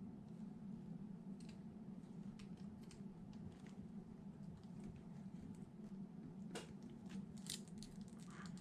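Faint clicks and light rattles of small wire connectors and wires being handled, over a steady low hum, with two sharper clicks near the end.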